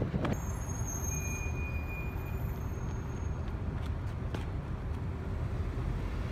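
Outdoor city street ambience: a steady low rumble of passing road traffic, with a couple of faint clicks.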